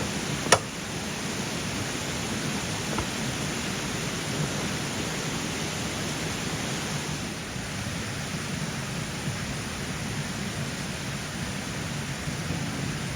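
Steady rush of a small mountain stream flowing, with one sharp click about half a second in.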